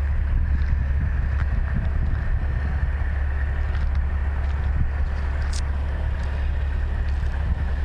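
Steady low rumble of the heavy-haul trucks' engines running, with wind buffeting the microphone.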